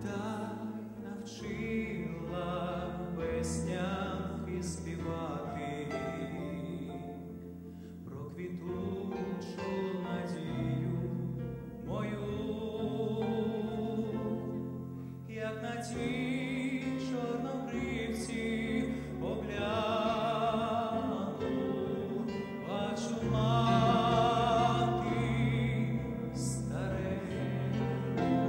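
A male solo singer singing a song through a handheld microphone over instrumental accompaniment, with wide vibrato on held notes; it grows louder toward the end.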